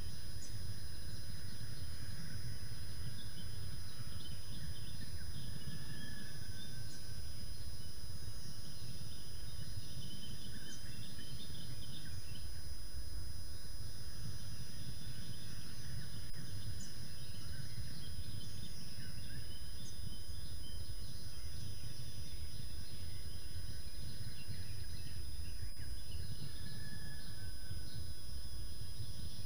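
Outdoor webcam ambience: a steady low rumble with faint, scattered bird chirps and a thin, constant high whine.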